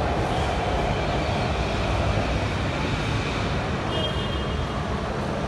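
Low, steady rumble of an electric metro train running on the elevated track, slowly fading as it moves away.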